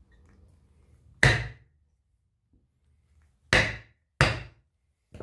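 A hammer strikes a wooden block held against a riding-mower tire's sidewall, driving the tire bead off the steel rim. Three sharp blows land, one about a second in and two close together near the end.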